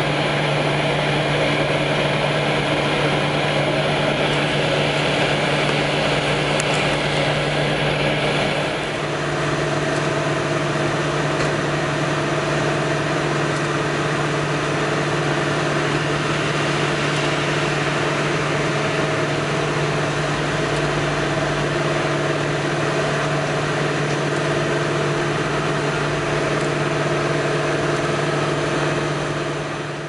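Concrete mixer truck's diesel engine running steadily while the drum discharges concrete down the chute. About nine seconds in, the higher rushing noise falls away and the engine note settles a little quieter.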